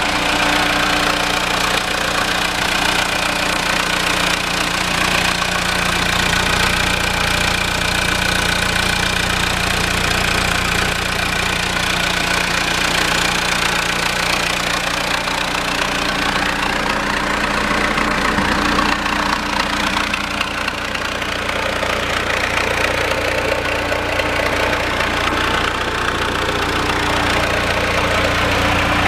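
Diesel engine of a 1992 Hyster H155XL forklift idling steadily.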